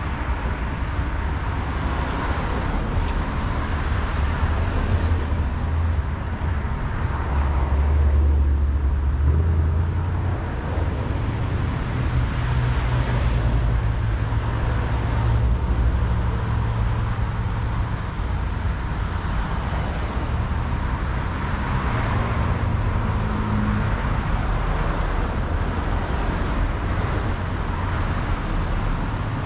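Busy city street traffic: cars and heavier vehicles running and passing, a steady wash of engine and tyre noise with a deep engine rumble that swells several times.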